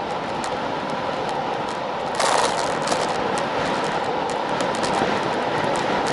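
Wind rushing over a bike-mounted action camera while riding a road bike along asphalt, with steady tyre and road noise and scattered small clicks; the rush swells briefly about two seconds in.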